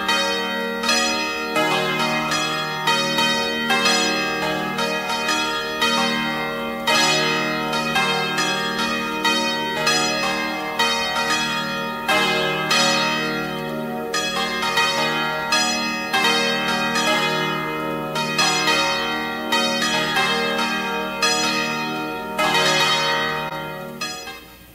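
Church bells ringing a continuous peal of overlapping pitched strikes, about two a second, over steady low held notes. The ringing dies away near the end.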